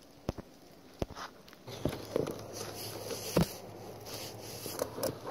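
Handling noises: a few sharp clicks and knocks, joined about two seconds in by a low steady hum and busier rustling with more knocks.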